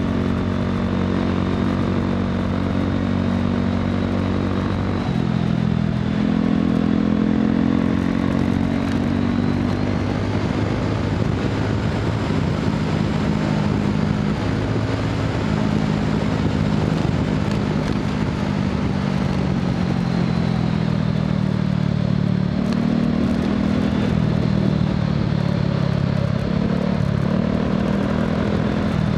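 Honda PCX scooter's single-cylinder four-stroke engine with an aftermarket muffler, heard from the bike while riding, its note rising and falling several times with the throttle. A faint high whine runs above the engine note.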